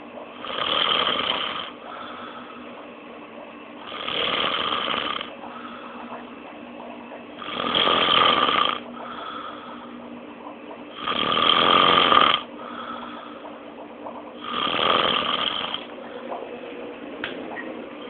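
A person snoring loudly in deep sleep: five long snores, each lasting over a second, coming about every three and a half seconds, with quieter breathing between.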